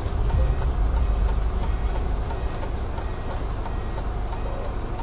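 A stationary vehicle's engine idling with a low rumble that swells for a couple of seconds near the start, over a steady ticking of about three ticks a second.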